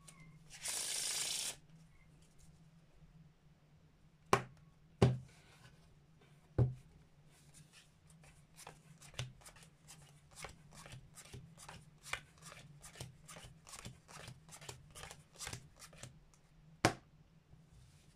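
Playing cards handled on a felt card mat. A brief rush of shuffled cards comes about a second in, then a few sharp taps of the deck on the table. After that, cards are dealt off one at a time at about three a second into poker hands, and a last sharp tap comes near the end.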